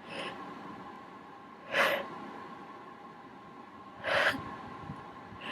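A person's small, short sneezes: a faint one at the start, then two sharp ones about two seconds apart.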